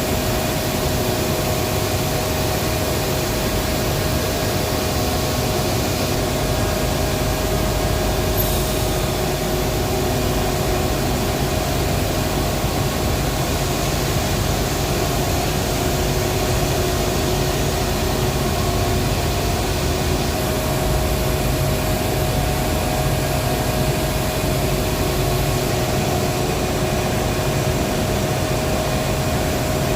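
Heavy power-plant machinery running with a loud, steady drone and a constant hum, unchanging throughout.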